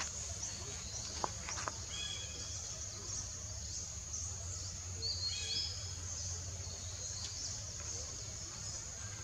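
Steady high-pitched insect drone in woodland, with a few short chirping calls about two and five seconds in, over a low steady hum.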